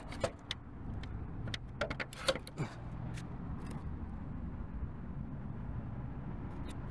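A handful of sharp clicks and knocks in the first three seconds as the plastic plug of a DC fast charger is handled, with a couple more near the end. A steady low hum runs underneath.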